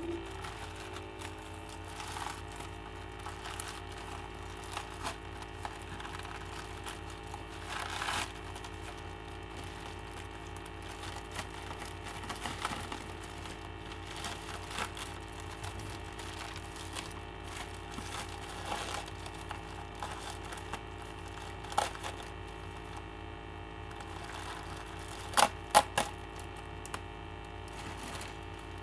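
Packaging being opened by hand: crinkling, rustling and tearing in irregular bursts, with scattered clicks and a few sharper snaps about three-quarters of the way through. A steady low electrical hum runs underneath.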